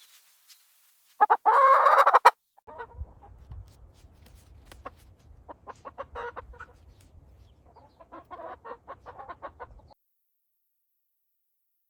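Plymouth Rock chickens: one loud squawk lasting about a second, a second into the sound, then scattered clucking that cuts off about ten seconds in.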